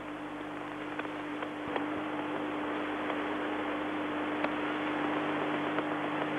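Steady hiss with a constant low hum from an old broadcast tape, carrying the ground's background noise, with a few faint clicks.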